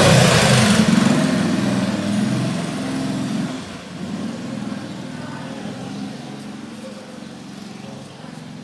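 A motor vehicle's engine passing by, loud at first and fading away over several seconds.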